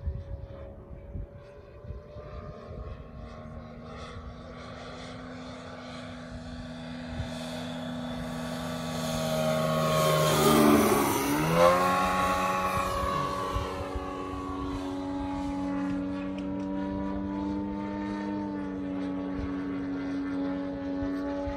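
Large-scale RC aerobatic plane's DA-200 four-cylinder boxer engine and propeller, growing louder as the plane approaches and passing close by about halfway through with a sharp drop in pitch, then running steadily at the lower pitch as it moves away.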